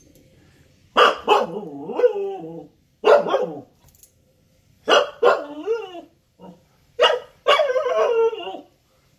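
Siberian husky puppy barking and yowling in play: four bouts, each opening with sharp barks that draw out into wavering, bending yowls, with short quiet gaps between.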